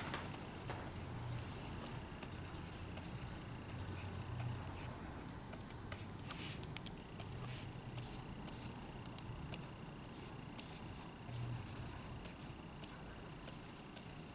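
Plastic stylus tip scratching and tapping on the screen of a pen display as brush strokes are painted, a scatter of short light strokes and clicks over a faint steady hum.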